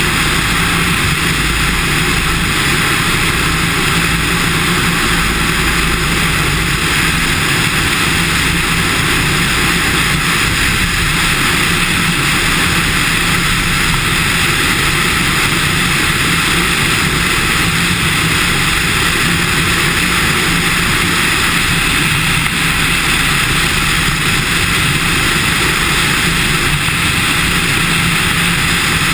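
Cessna 150's four-cylinder Continental O-200 engine and propeller running steadily, heard from a camera outside on the wing strut with heavy wind rush over the microphone.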